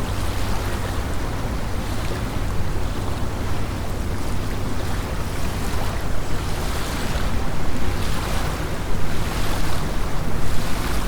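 Small lake waves lapping on the shore in a steady wind, with a low rumble of wind on the microphone. The wash comes in several louder surges in the second half.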